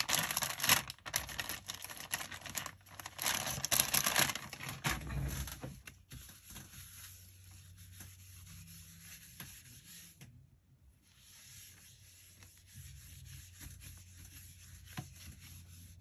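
A kitchen cleaning cloth rubbing across a worktop, wiping up ink. The rubbing is loud for about the first five seconds, then drops to faint, scattered rubbing.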